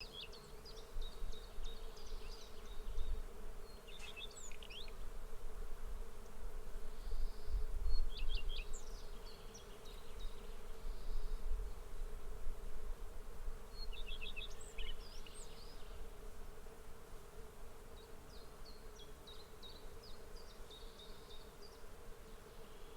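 A swarm of bees buzzing in a steady drone. A low rumble swells and fades through the first half, and short high chirps come in small clusters every few seconds.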